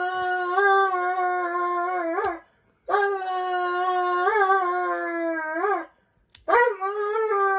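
Doberman pinscher screaming in long, steady, high wails, three in a row with short breaks for breath. It is a fuss at having its nails clipped while held down, which the owner says does not hurt. A sharp click falls in each gap.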